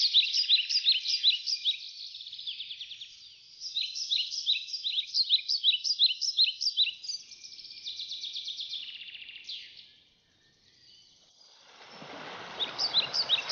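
Songbirds chirping in quick, high, repeated runs that stop about ten seconds in. Near the end a steady rush of creek water comes in, with birds chirping over it.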